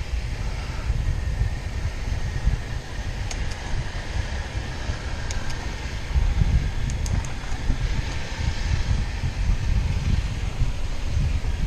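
Wind buffeting the microphone of a bicycle-mounted action camera while riding on a paved road: a low, fluctuating rumble, with a few faint ticks around the middle.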